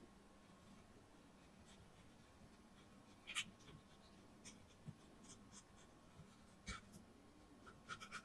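Faint scrapes and light ticks of a miniature knife cutting into a small whole fish on a tiny wooden cutting board, the clearest about three seconds in and a quick run of them near the end; otherwise near silence.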